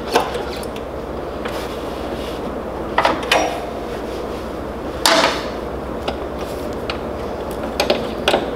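A few short knocks and clunks at irregular intervals, the loudest about five seconds in, from working a go-kart's hydraulic brakes (pedal being pumped, bleeder being worked) while air is bled from the lines. A steady low hum runs underneath.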